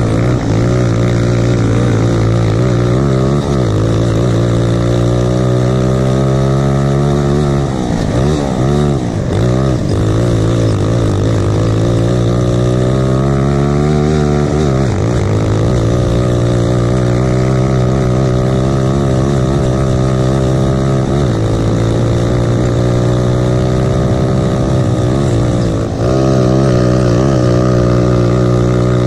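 A Lifan single-cylinder four-stroke grass-kart engine running hard at racing speed, heard close from the driver's seat. Its pitch climbs in long rises on the straights and drops sharply as it backs off, about eight and fifteen seconds in, before climbing again.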